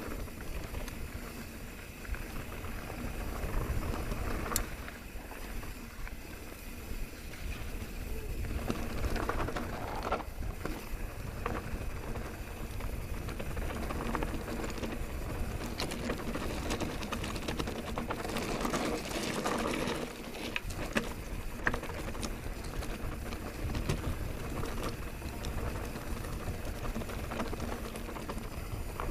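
Mountain bike descending dry dirt singletrack: tyres rolling and crunching over the trail, wind rushing on the microphone as a low rumble, and scattered sharp clicks and rattles from the bike over bumps.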